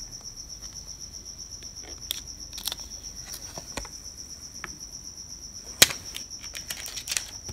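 A cricket chirping in a rapid, even pulse throughout, with scattered crinkles and clicks of a foil card cover being peeled off a trading card and the card handled; one sharp click about six seconds in is the loudest.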